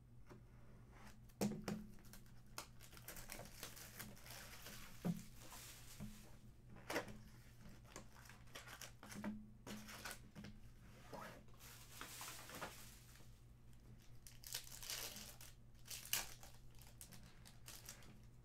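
Hockey card packs and their box packaging being handled and opened by hand: foil wrappers crinkling and tearing in irregular spurts, with a few sharp clicks.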